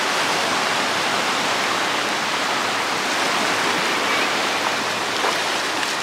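Sea surf breaking and washing over shallow water at the shoreline: a steady rushing hiss.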